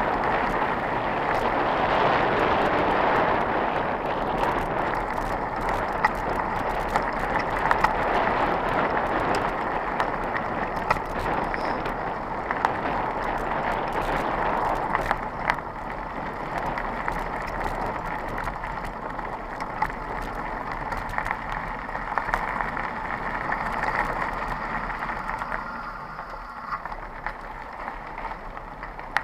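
Mountain bike riding fast over a gravel path: a steady rush of tyre noise on loose stones, with frequent sharp clicks and rattles. It grows somewhat quieter about halfway through.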